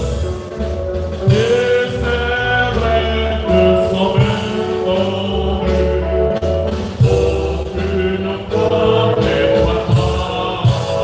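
Church choir singing a hymn, voices holding long notes over a steady low accompaniment.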